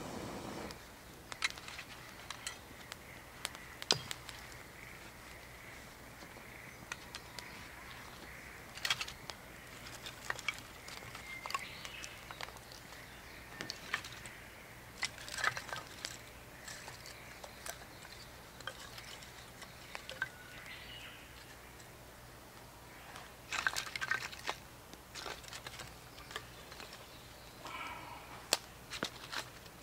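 Small campfire of split wood crackling, with scattered sharp pops and clicks, and now and then the knock of split sticks being laid onto the fire.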